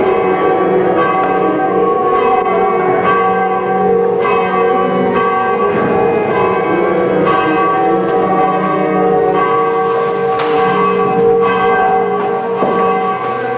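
Church bells ringing, strokes coming irregularly every half second or so, their tones overlapping so that the ringing hums on without a break.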